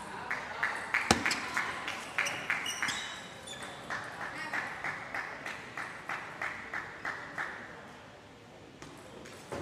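Table tennis rally: the celluloid-type ball clicking off the rubber paddles and bouncing on the table, a few sharp clicks a second, with one loud hit about a second in. The clicks stop about two seconds before the end.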